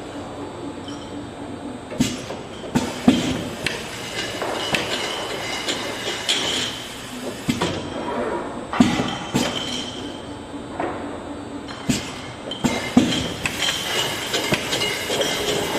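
Automatic inline bottle-filling machine running, a steady mechanical noise with sharp clicks and clinks at irregular intervals.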